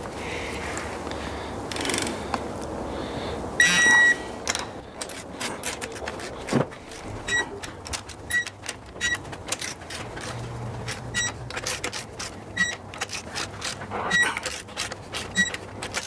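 Ratcheting torque wrench clicking in quick strokes as cylinder-head nuts on a Mercedes-AMG M156 6.2-litre V8 are drawn down to 55 Nm, the first stage of a three-stage torque sequence. A high beep sounds once for about half a second near four seconds in, and short high beeps recur every second or so from about seven seconds on.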